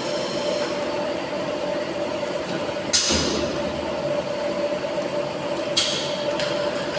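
Tilting-type air-jet bottle washing machine running with a steady mechanical hum and a thin high whine. A short, sharp hiss of air cuts in about three seconds in and again near six seconds.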